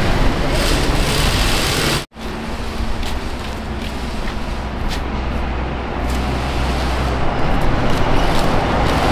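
Steady roadside traffic noise with a low rumble and a few faint knocks, dropping out for an instant about two seconds in.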